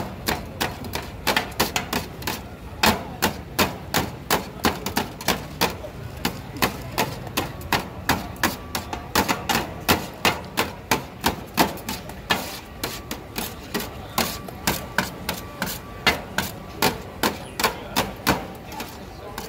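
Metal spatula chopping shawarma meat against a metal pan, a rapid, steady clatter of sharp strikes, about three to four a second.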